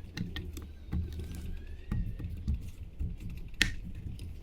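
Light clicks and knocks of small metal parts being handled during a VANOS seal rebuild, with two sharp metallic clinks near the end.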